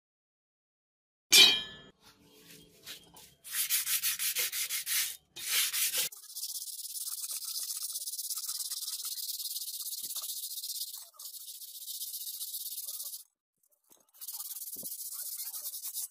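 Sandpaper rubbed by hand along a rusty steel sword blade to scour off rust. It starts with quick back-and-forth strokes, about six a second, then settles into steady continuous rubbing for several seconds, breaks off, and starts again near the end. A single sharp knock sounds about a second in.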